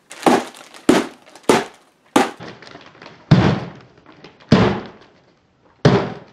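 Air holes being stabbed into a gift-wrapped cardboard shoebox: seven sharp thunks of paper and cardboard being struck and punctured, roughly one a second.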